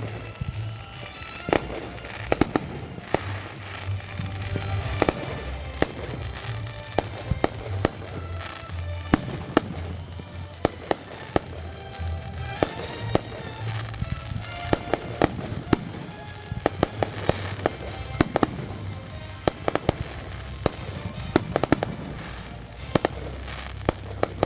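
Fireworks going off: a rapid, irregular string of sharp bangs and pops, often several a second, over a steady low rumble.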